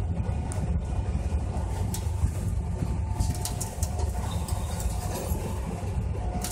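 Steady low rumble of the air-supported tennis dome's inflation blowers, with a few short sharp knocks of tennis balls being struck.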